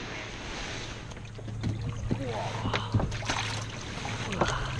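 Kayak on a river: a steady wash of water with scattered light knocks and splashes, over a low steady hum.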